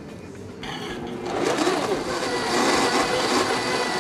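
Countertop blender starting up about half a second in and building to a steady run at full speed by about a second and a half in, with a thin high whine, pureeing grilled carrots with cooking liquid into a smooth puree.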